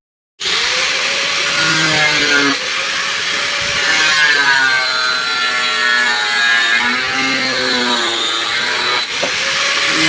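A small electric motor running steadily with a high whine whose pitch wavers up and down; it starts abruptly just after the beginning.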